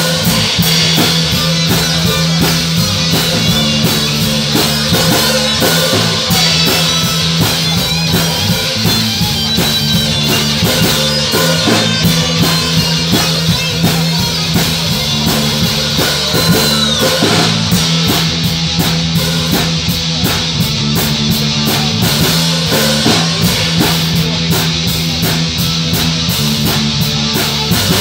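Live rock band playing an instrumental passage: electric guitars over a drum kit keeping a steady beat.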